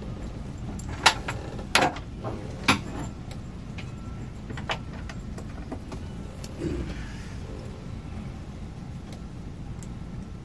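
A handful of sharp clicks and knocks from hands working with tools and cable, clustered in the first five seconds with one softer knock later, over a steady low hum.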